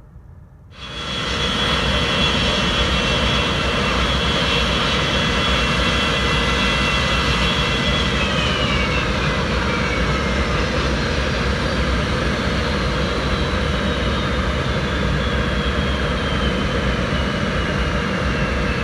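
Boeing 727-200F's three Pratt & Whitney JT8D low-bypass turbofans running loud on landing, a rushing jet noise with a high whine that cuts in suddenly and then falls steadily in pitch as the jet goes past.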